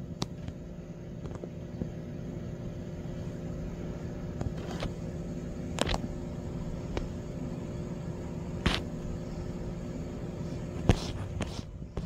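Steady low household hum (room tone), broken by several separate sharp clicks and knocks, the loudest about a second before the end.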